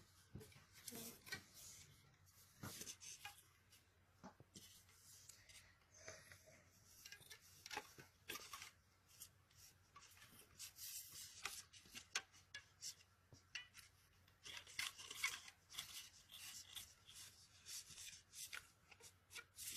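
Faint handling sounds of hands fitting popsicle sticks and a rubber band into a thermocol foam toy boat: scattered small clicks and brief rubbing scrapes, a little busier in the middle and toward the end.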